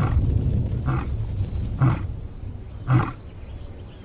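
A lion roaring: a low rumbling call that breaks into a series of short grunts about a second apart.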